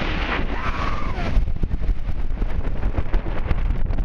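Strong storm wind buffeting the phone's microphone, a heavy rumble with crackling gusts, over rough surf churning against the pier.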